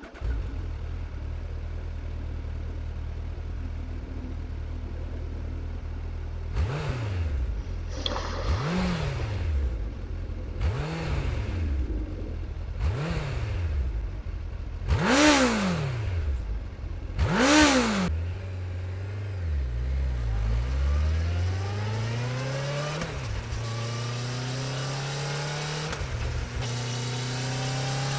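Second-generation Suzuki Hayabusa's 1340 cc inline-four idling, then blipped six times, each rev rising and falling back to idle. It then pulls away and accelerates through the gears, the pitch climbing steadily with short dips at each upshift.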